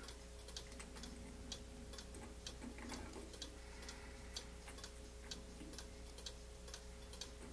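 Faint, regular ticking, about three ticks a second, over a steady low hum.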